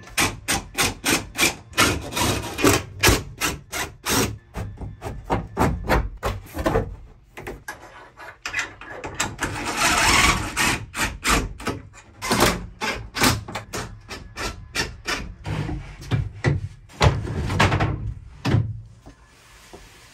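Power driver sinking self-tapping screws through a steel bed bracket into the van's sheet-metal wall: a quick, uneven run of sharp clicks and knocks, with a steadier whirring stretch about ten seconds in.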